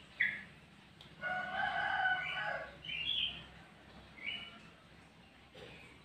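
Sooty-headed bulbul (kutilang) giving short, clear whistled notes every second or so. A rooster crows once in the background, a drawn-out crow of a second and a half starting about a second in, the loudest sound here.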